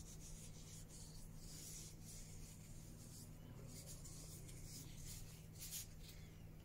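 Faint, soft rubbing and brushing strokes as polish is worked by a gloved hand and brush into the inside of a wooden clock pendulum weight.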